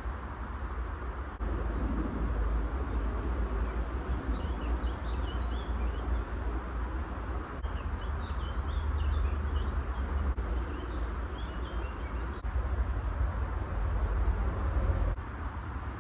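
Small birds chirping in short bursts, about four seconds in and again around eight to eleven seconds, over a steady low rumble and hiss of outdoor background noise.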